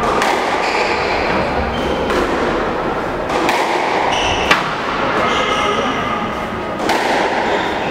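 Squash rally: sharp smacks of racket on ball and ball off the walls, several strokes about one to two seconds apart, the loudest about four and a half seconds in, echoing in the hall. Short high squeaks of court shoes on the wooden floor come between the strokes, over a steady murmur of voices.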